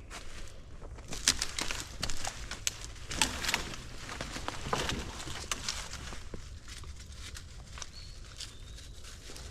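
Footsteps on a woodland trail, an irregular series of crunching steps that thin out in the last few seconds.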